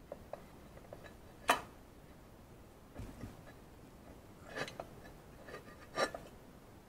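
Scattered sharp clicks and taps of hard parts being handled while the valve cover is worked into place, with a dull low bump about three seconds in. The loudest click comes about a second and a half in, with two more near the end.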